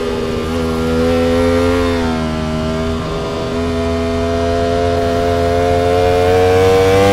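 Ducati V4 motorcycle engine running under load, its pitch rising a little, dipping about three seconds in, then climbing slowly again.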